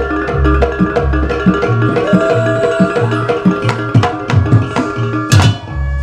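Live jaranan campursari ensemble music for dance: two-headed kendang hand drums play a busy stroke pattern over held violin and gamelan tones. The deep bass beat stops about half a second in and comes back at the very end, with one loud sharp stroke just before it returns.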